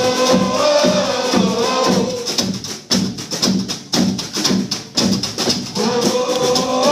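Live upright bass and banjo playing a quick, rhythmic tune, the strings' plucked strokes giving a steady beat of two or three a second. A man sings over it for the first two seconds; then only the bass and banjo play, and the singing comes back near the end.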